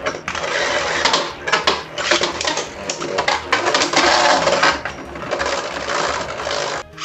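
Beyblade spinning tops grinding and clashing against each other in a stadium: a dense rattling scrape broken by sharp clicks, which stops abruptly near the end.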